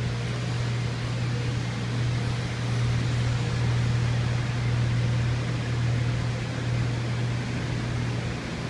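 Steady whoosh of many air movers and dehumidifiers running together to dry out a flooded building, with a constant low hum underneath.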